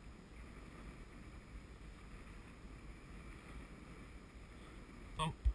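Wind rumbling on the microphone over faint sea noise around a small drifting boat, with a short sound and a low thump near the end.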